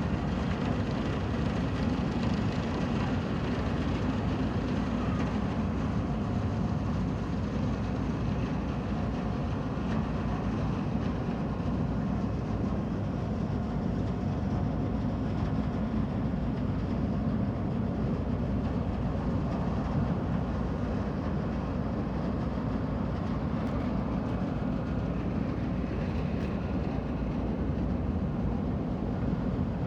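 Steady low rumble of the car ferry Kogane Maru's engines running as it leaves port.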